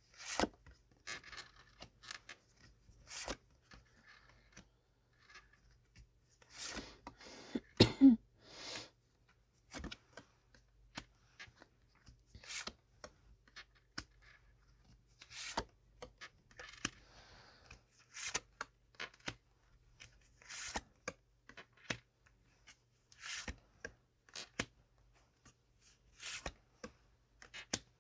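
Tarot cards being handled on a table: shuffled and laid out, with many short card slaps and brief rustles at irregular intervals. There is a louder cluster about eight seconds in.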